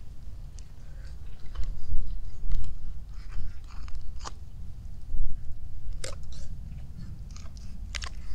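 Knife cutting through a whole raw chicken on a wooden board, with irregular crunching and cracking as the blade splits the carcass through bone and cartilage. The sharpest snaps come about four, six and eight seconds in.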